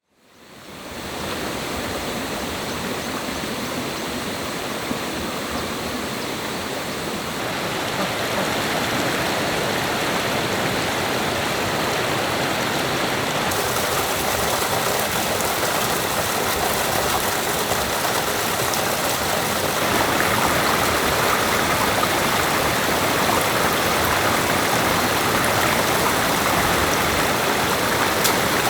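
Steady rushing of stream water, fading in at the start and growing louder and brighter in a few steps.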